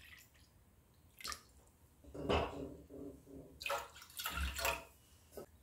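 Water poured from a steel vessel into a plastic measuring cup, then the cupful poured into a steel pot of rice-flour batter, in a few short splashing pours.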